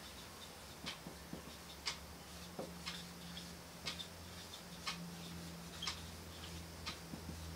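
A clock ticking faintly and evenly, about once a second, over a low steady hum, with soft irregular scratching of a marker writing on a whiteboard between the ticks.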